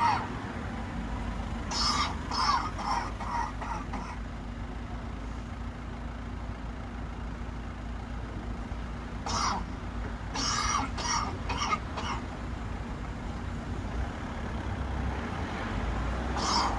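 Coughing from a "coughing bus shelter": a run of about five coughs a couple of seconds in, a single cough around nine seconds, another run of four or five soon after, and one more near the end. A steady low rumble of street traffic runs underneath.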